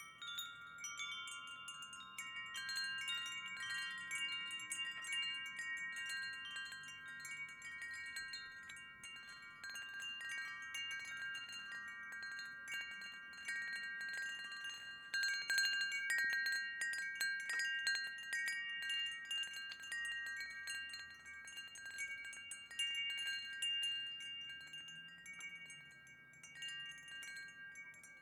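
Wind chimes ringing, with many overlapping, long-sustained tones struck again and again. The strikes are busiest in the middle and thin out near the end.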